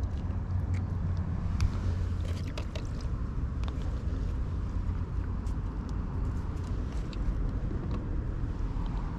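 Steady low outdoor rumble with scattered small clicks and taps from hands handling a fishing hook and line.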